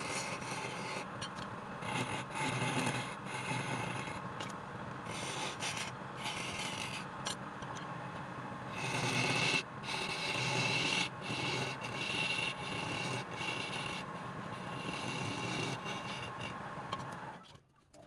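A tool scraping and rasping against wood: a steady rubbing noise with short breaks, stopping abruptly near the end.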